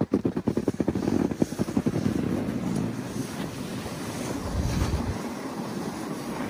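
Wind rushing and buffeting on a phone microphone while riding a snowboard, mixed with the board sliding over snow. The first second or so is rough and crackly, and there is a low rumbling gust about five seconds in.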